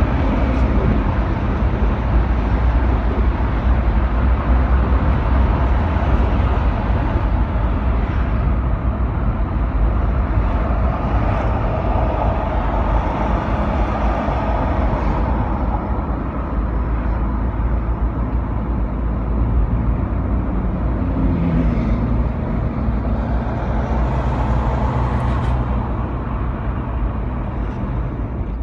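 Car driving on a city road, heard from inside the cabin: a steady low rumble of engine and tyre noise.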